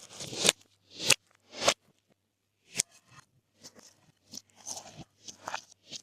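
Glossy slime being mixed and squeezed by hand, giving sharp popping and crackling sounds: four loud pops in the first three seconds, then a string of softer pops and squishes.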